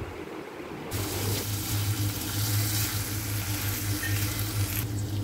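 Chopped onions and ginger-garlic paste sizzling in hot oil in a kadhai while a silicone spatula stirs them. The steady sizzle starts about a second in, with a low steady hum under it.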